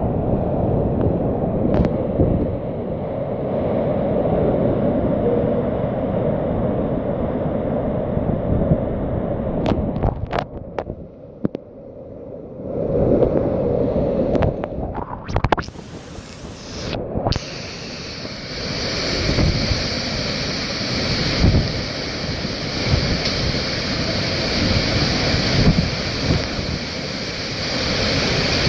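Hurricane wind gusting and buffeting the microphone in uneven surges; a little over halfway through it turns into a steadier, brighter hiss.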